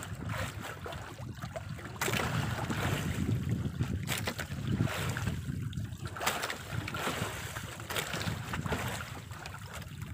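Wind rushing over the microphone and sea water washing against a small outrigger boat, with no engine running. It gets louder about two seconds in, and there are a few faint clicks.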